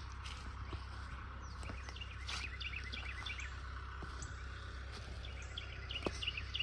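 Small birds chirping in two quick runs of high chirps, over a steady low outdoor background hum. A couple of sharp clicks come near the end.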